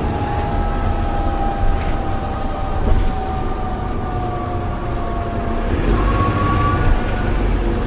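Allison automatic gearbox on an Optare Solo bus whining as the bus slows down, over the low rumble of the running bus. The whine falls slowly in pitch, and a second, higher whine comes in about six seconds in.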